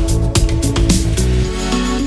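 Background music: an electronic track with a steady beat and bass line. The beat drops out near the end, leaving held notes.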